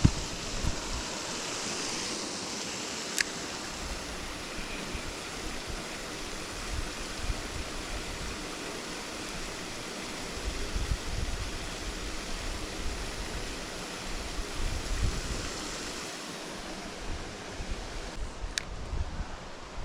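Steady rush of flowing river water, with low wind buffeting on the microphone coming and going, mostly in the second half.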